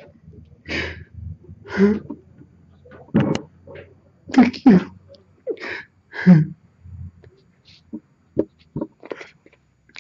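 A man sobbing hard: sharp, breathy gasps and choked sobs in irregular bursts, loudest around the middle.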